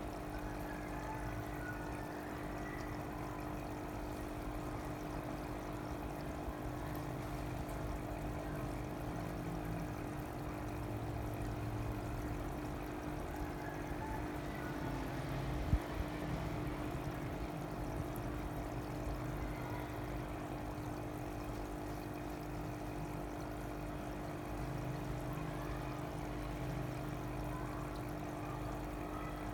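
Water running and pouring steadily, over a constant mechanical hum, with one sharp click about halfway through.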